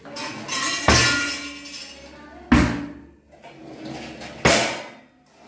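Pull-out kitchen basket drawers being pushed shut, three bangs about two seconds apart, each followed by the ringing rattle of steel utensils in the wire baskets.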